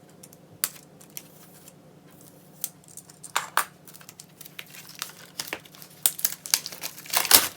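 Crinkling of plastic wrapping and handling of a packaged K-pop album as it is opened: scattered rustles and clicks that grow busier and louder toward the end.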